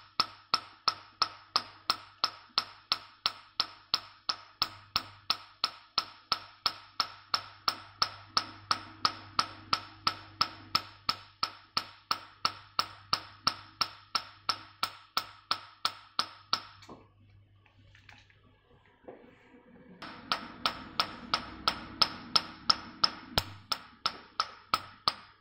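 Nd:YAG laser handpiece firing pulses onto black carbon gel on facial skin: an even train of sharp snaps, about four a second. The snaps pause for about three seconds partway through, then resume. A faint low steady hum runs underneath.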